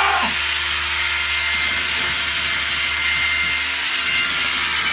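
Power drill running steadily with its bit grinding into a Philips flat-screen TV's glass front: a continuous motor whine with no break.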